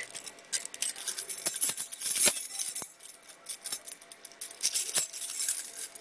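A bunch of keys on a key ring jangling and clinking as they are sorted through by hand, a run of quick, irregular metallic clinks.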